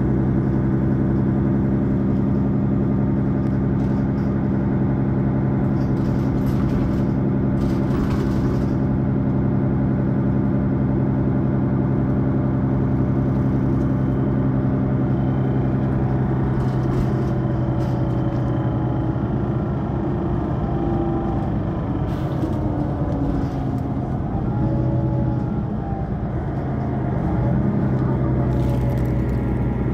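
Mercedes-Benz Citaro facelift city bus standing with its engine idling, a steady hum that grows less even from about halfway through.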